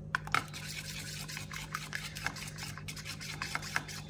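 A spoon stirring thin besan (gram flour) batter in a stainless steel bowl, with quick irregular scrapes and taps against the bowl's side, over a steady low hum.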